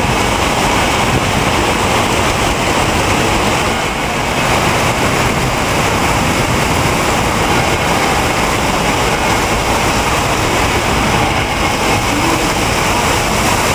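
Heavy rainstorm: a steady, loud rush of pouring rainwater, with a brief dip about four seconds in.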